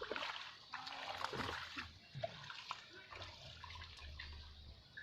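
Water splashing and sloshing, busiest in the first two seconds, with a few small clicks and knocks.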